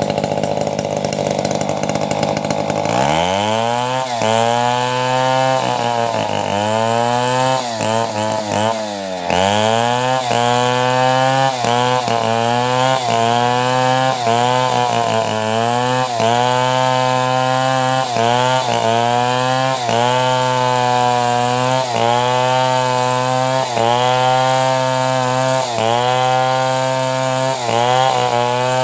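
Two-stroke chainsaw running at low speed, then revving up about three seconds in and held at high speed. Its pitch sags and recovers roughly every second, as it does while the saw rips lengthwise through a log into planks.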